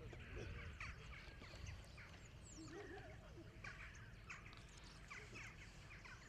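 Faint open-field ambience: scattered short bird chirps and calls over a low steady rumble.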